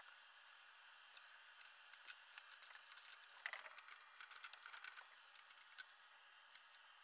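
Near silence with faint light clicks and rattles, most of them a little past the middle, as the aluminium rails of a routing frame are handled and adjusted.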